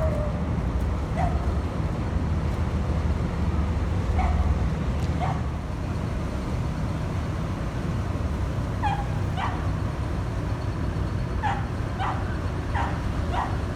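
About ten short yelping animal calls, some in quick pairs near the end, over a low steady rumble.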